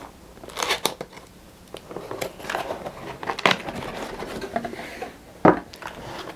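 Cardboard retail box being opened by hand: the lid sliding and lifting off, with cardboard rustling and scraping and a few sharp knocks, the loudest about five and a half seconds in.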